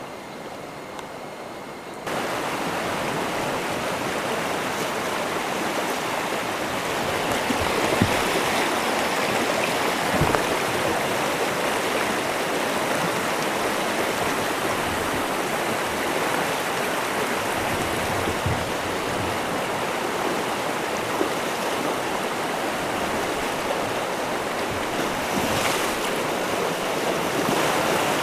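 Rushing water of river rapids, a steady noise that jumps louder about two seconds in, with a few short low knocks.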